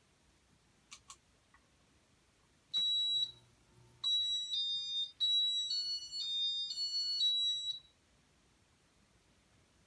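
Casablanca W-32 Inteli-Touch ceiling fan electronics beeping: two quick clicks, then one high beep and a short tune of high beeps stepping up and down in pitch.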